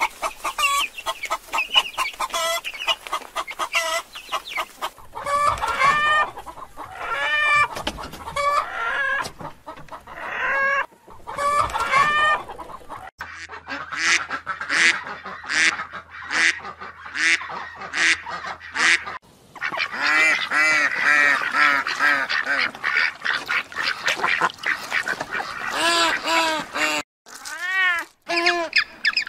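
Chickens clucking for the first dozen seconds; then a swan calling in an even series, about one call every three quarters of a second, followed by denser honking calls. A single kitten's meow near the end.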